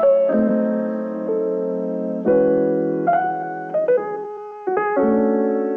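Montage background music: electric piano chords struck every second or two, each ringing and slowly fading.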